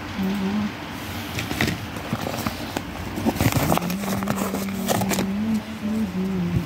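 Rustling and a run of short clicks as a hand rummages in a fabric carry bag and pulls out papers, busiest in the middle. Underneath is background music holding a low note that steps in pitch.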